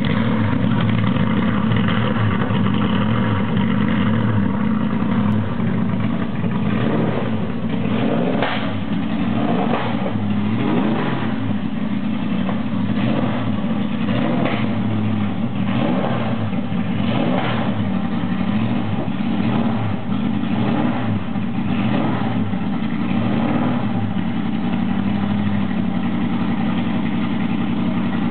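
Triumph TR8 race car's V8 engine warming up at idle, with a series of short throttle blips in the middle stretch, then settling to a steady idle near the end.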